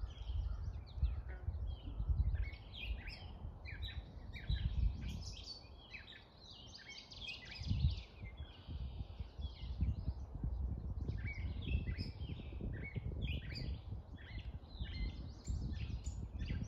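Songbirds singing outdoors in spring, with quick, varied chirps and short phrases that overlap and never stop for long. An uneven low rumble runs underneath.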